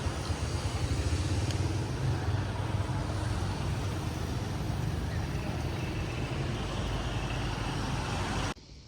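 Steady rumble of a motor vehicle's engine and road noise, cutting off suddenly near the end.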